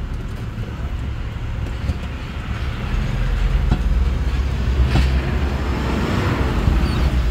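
Kia Bongo 3's common-rail diesel engine and road noise while the truck is driven on a road test, its four fuel injectors freshly rebuilt. A steady low rumble that grows louder from about three seconds in.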